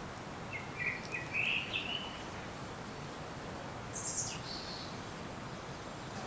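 Wild songbirds calling in a forest over a steady ambient hiss: a quick run of chirps in the first two seconds, then a brief higher, thinner call about four seconds in.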